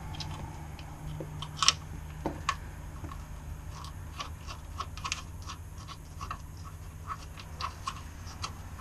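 Irregular light clicks and taps of a screwdriver and metal fastener as a screw is worked into a storm-door screen's hardware, over a steady low hum.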